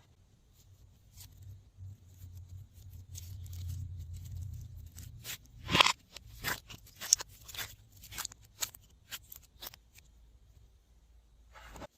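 Glossy slime being worked by hand: a low handling rumble at first, then, from about six seconds in, a run of quick sticky clicks and pops.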